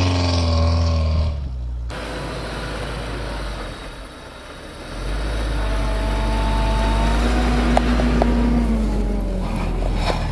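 UAZ Patriot four-wheel-drive SUV engine working hard in deep snow, with its wheels spinning and churning through the snow. It breaks off suddenly about two seconds in, then comes back heavier, its pitch rising and falling as the driver works the throttle.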